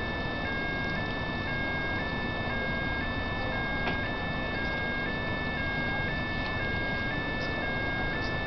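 Railway level-crossing warning alarm sounding continuously: an electronic two-tone ring whose pitch alternates about twice a second. It warns of an approaching train. A steady noisy background runs under it.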